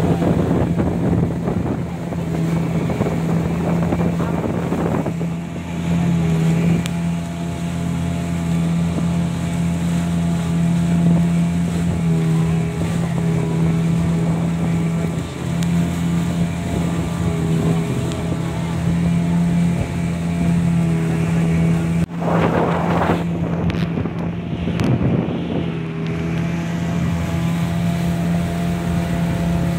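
Motorboat engine running steadily at cruising speed, a constant low hum heard from aboard. About two-thirds of the way through, two louder rushing surges of noise rise over it.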